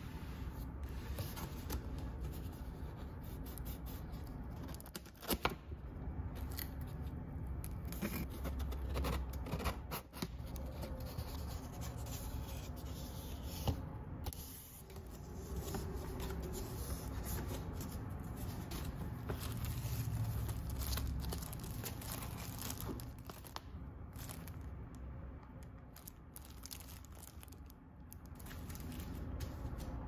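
Cardboard box flaps opened and folded back by hand, the cardboard rubbing and scraping, with a few sharp clicks.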